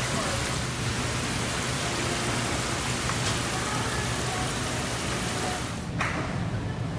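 Water spraying from rows of pipes and splashing into live-seafood tanks, a steady rain-like hiss over a low hum. The hiss cuts off suddenly about six seconds in, leaving the hum.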